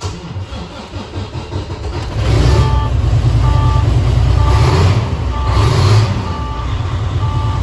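Volvo VNL semi truck's diesel engine starting on the first attempt, with an uneven rumble that catches and runs loud and steady from about two seconds in. Over it the dash warning beeps about once a second, the low brake air pressure alarm of a truck whose air tanks have not yet built pressure.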